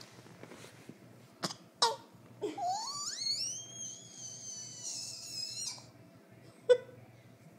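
Two sharp clicks, then a long high call from a pet that rises steeply like a whistle and holds steady for about three seconds before cutting off, followed by one more sharp click near the end.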